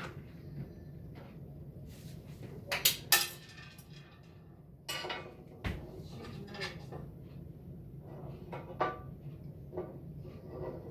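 Metal clinks and knocks from handling tools and parts while taking apart a microwave, the sharpest pair about three seconds in, over a steady low hum.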